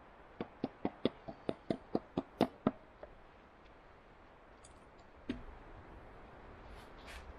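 Wooden baton striking wood: a quick run of about a dozen sharp knocks, roughly five a second, then a single knock a couple of seconds later.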